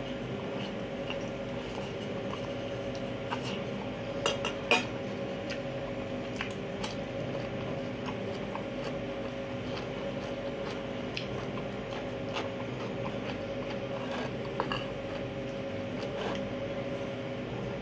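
A metal fork clinking and scraping against a ceramic bowl now and then, the two loudest clinks about four and five seconds in, with chewing of fried pig ears. A steady hum runs underneath.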